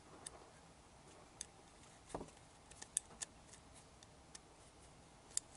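Faint, irregular small metallic clicks and ticks from a long screw being handled and tried through a carburettor rubber's strap clamp, with one duller knock about two seconds in.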